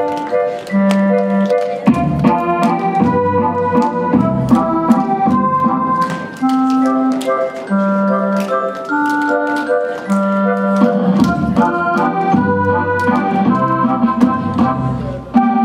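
Instrumental dance music with a sustained organ-like melody over alternating bass notes and a steady beat.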